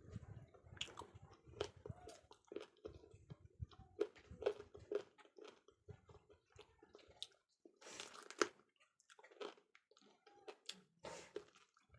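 Close-miked eating sounds: chewing with irregular wet smacks and crisp clicks of the mouth, and a longer noisy smack about eight seconds in.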